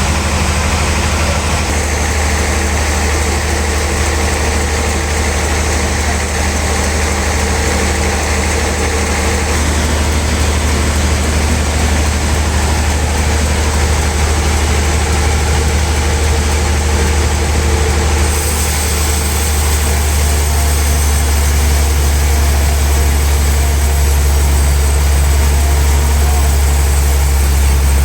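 Sawmill machinery running with a steady, heavy low drone and a broad hiss over it. About two-thirds of the way through the high hiss changes, and it grows slightly louder towards the end.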